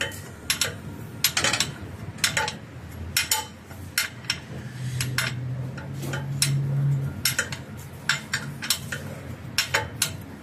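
A metal wrench clinks against the manual gearbox drain plug in a run of irregular, sharp clicks as the plug is tightened.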